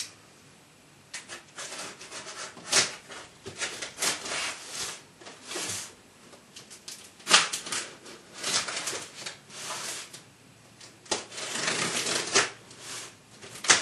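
Hands picking, peeling and rubbing at the packing tape and flaps of a cardboard box: irregular scraping and tearing noises with a few sharper cracks.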